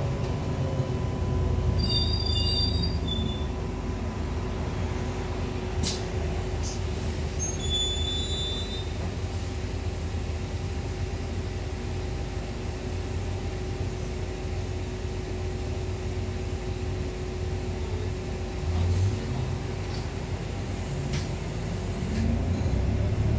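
Bus interior noise as the bus rolls slowly up to a stop: the engine rumbles low under a steady hum. Short, high brake squeals come about two and eight seconds in, and a sharp knock about six seconds in.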